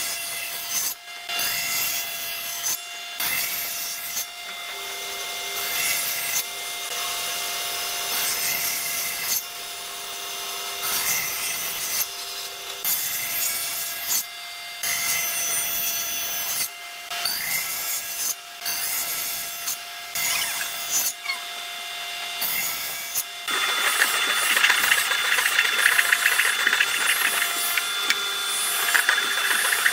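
Tools working wood: sawing, rasping and rubbing strokes in a run of short clips that cut off abruptly one after another. About two-thirds of the way in, a louder, denser tool noise takes over.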